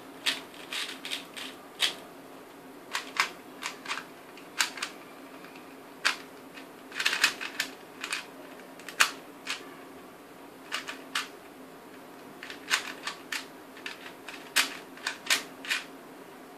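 3x3 speedcube's plastic layers clicking as they are turned at speed while OLL algorithms are executed. The clicks come in quick irregular runs with short pauses between them.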